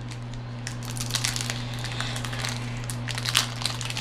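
Foil wrapper of a Pokémon card booster pack crinkling as it is handled and opened, in irregular crackly rustles, over a steady low hum.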